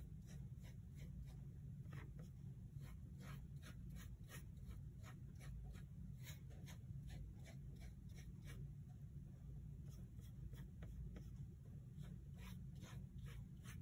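Paintbrush scrubbing a gritty paste of baking soda and watercolor onto paper: faint, irregular scratchy strokes over a low steady hum.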